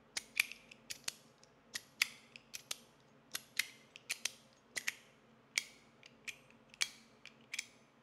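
Metal slider fidget toy with a stainless-steel Gatling-style barrel, clicking as it is slid back and forth: a string of sharp metallic clicks, about two or three a second, some in quick pairs.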